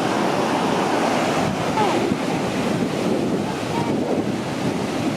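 Ocean surf washing onto the beach, a steady rush, with wind buffeting the microphone.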